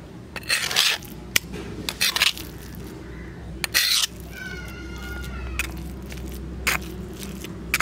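Spoon scraping wild arum and shrimp paste across a stone grinding slab in several short strokes. About four seconds in, a cat meows once in one drawn-out call.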